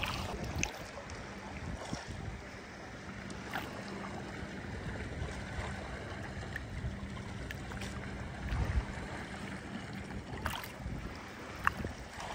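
Wind buffeting the microphone over gentle lapping of shallow seawater, with a few small splashes and ticks and a faint steady hum through the first two-thirds. A low thump comes about two-thirds of the way through.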